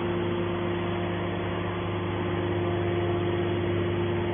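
Hydraulic scrap metal baler's motor and pump running with a steady, even hum.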